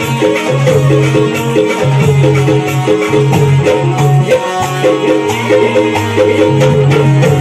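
Live Konkani folk dance music of the shakti-tura style: an electronic keyboard playing a melody with a steady bass line over a regular, shaker-like percussion rhythm.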